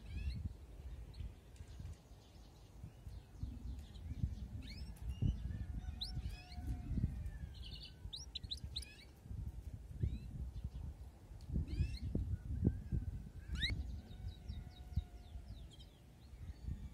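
Domestic canary giving short rising chirps and brief quick trills, scattered rather than one continuous song, over a gusty low rumble.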